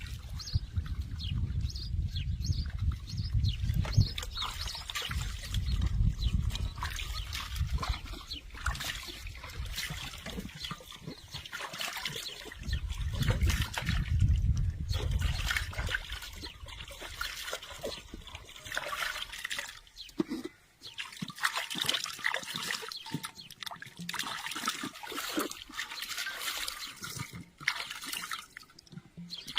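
Water trickling and splashing, with many small clicks and knocks, and a low rumble through the first half.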